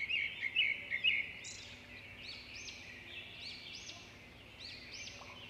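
Small birds chirping, many short high chirps overlapping, busiest and loudest in about the first second.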